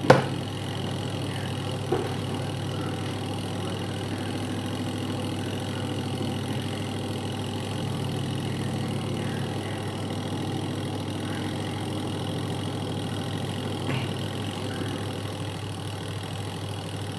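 Aqua Japan washing machine's spin-dryer motor running steadily, a continuous low hum with the spinning drum, on a cycle where the dryer spins properly again after repair.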